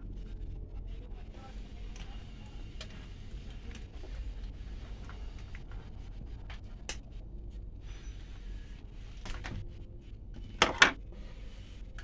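Faint rustling and scattered small clicks as stripped car wires are handled and twisted together, over a low steady hum. A single sharp click comes about seven seconds in, and a brief loud voice sound comes shortly before the end.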